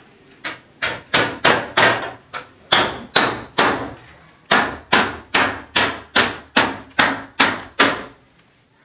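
Repeated hammer blows overhead, about three a second, nailing into a ceiling frame. There is a short pause about four seconds in, and the hammering stops about a second before the end.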